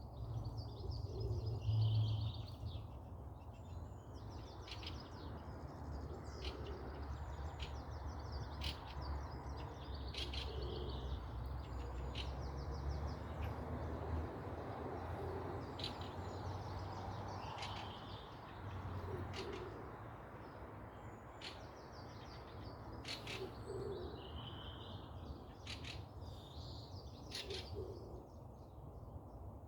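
Forest birds chirping and trilling in many short, repeated calls, with a soft low call recurring every few seconds. A low rumble lies underneath, loudest about two seconds in and fading after the first half.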